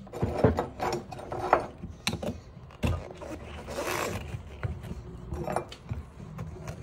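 Steel tire levers knocking, clinking and scraping against an electric scooter wheel's rim and rubber tire as they are worked in under the bead to take the tire off. There is an irregular run of sharp knocks, about a dozen, with scraping in between.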